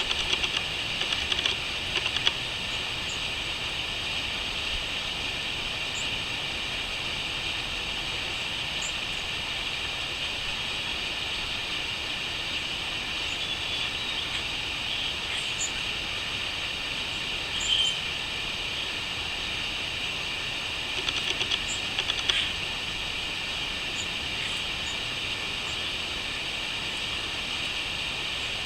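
Steady chorus of crickets, a continuous high-pitched trilling drone, with a few short bird calls and brief louder trills breaking through, one about a second in, one near two-thirds of the way through and a cluster shortly after.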